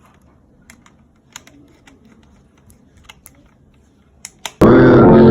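Faint, scattered small clicks and taps from wires and socket parts being handled while a double socket is wired. About four and a half seconds in, a loud song starts abruptly.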